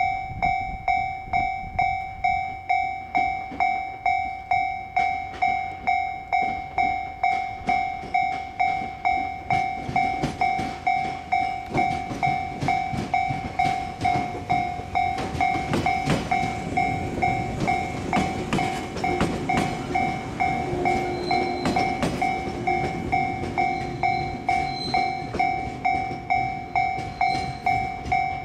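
Japanese railway level crossing alarm ringing over and over, a two-tone electronic 'kan-kan' at about three strikes every two seconds. From about ten seconds in to a little past twenty, a train rumbles over the crossing beneath it.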